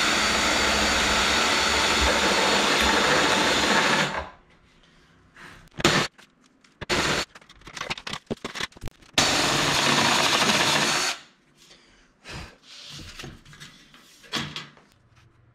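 Cordless drill boring out holes in an aluminum bulkhead for snap bushings, running in two steady bursts: about four seconds at the start and about two seconds in the middle. Between and after the runs come light clicks and knocks as the metal part is handled.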